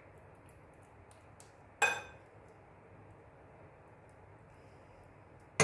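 A metal spoon clinks sharply against the dishes twice, about two seconds in and again at the very end, each clink ringing briefly.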